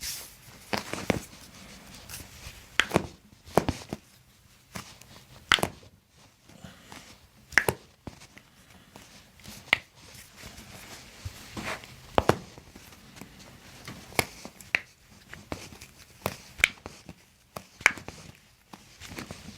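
Toe and foot joints cracking during a chiropractic adjustment: about a dozen short, sharp pops at irregular intervals a second or two apart, with quiet handling sounds between them.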